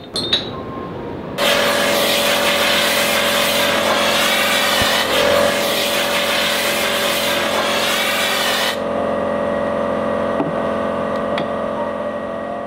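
Hose-fed hand tool working a stone block: a loud hiss with a wavering whine starts abruptly about a second and a half in and stops near nine seconds. A quieter, steady machine hum carries on after it.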